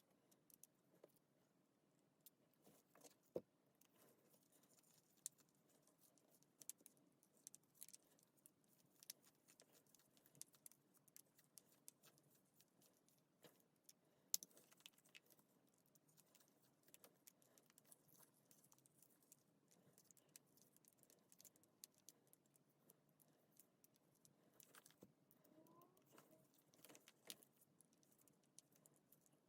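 Faint, scattered light clicks and clinks of small hard objects being handled, over near silence, with two sharper ticks about three and fourteen seconds in.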